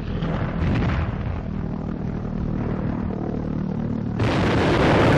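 Anti-aircraft guns firing on an old film soundtrack: booms over a steady low hum, then a louder, longer blast starting about four seconds in.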